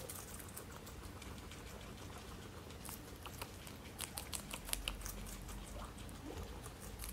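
Guinea pig chewing lettuce: faint, crisp crunching clicks, coming thickest about halfway through.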